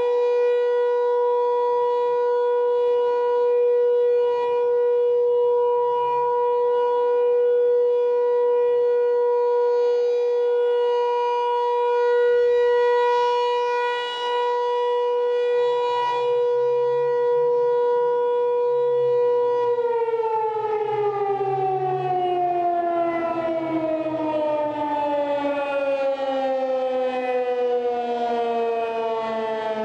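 Outdoor civil defense warning siren sounding a steady single tone, then winding down with a steadily falling pitch from about twenty seconds in.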